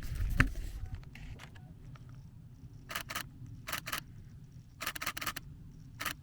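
Nikon Z6 II camera shutter firing in short bursts: two frames about three seconds in, two more near four seconds, a rapid run of four near five seconds and a single frame near the end. A dull bump of the camera being handled comes just at the start.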